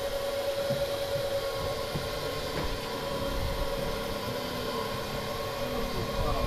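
Fishing boat's engine running steadily, a constant drone with a steady hum.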